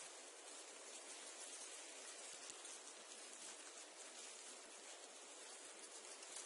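Reeds and sedge rustling in the wind: a faint, steady, fine hiss flecked with tiny crackles.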